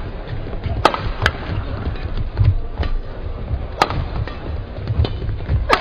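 Badminton rackets hitting a shuttlecock during a doubles rally: four sharp hits at irregular spacing, two close together about a second in, one near four seconds and one near the end, over a steady low rumble of the hall.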